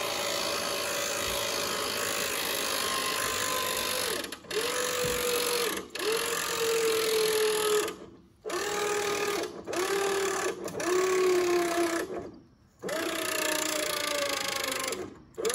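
A Badland 2000 lb 12-volt electric boat winch motor whining as it winds in its wire rope under a heavy pull. It is switched on and off in repeated bursts, stopping briefly about seven times, and the whine sags a little in pitch during several of the runs.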